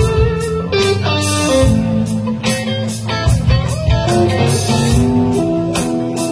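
Live band playing an instrumental passage without vocals: electric guitars, one bending lead notes, over drum kit and a steady beat.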